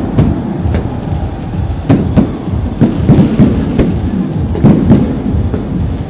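Aerial firework shells bursting overhead: an irregular string of sharp bangs, a dozen or so over six seconds, above a continuous low rumble.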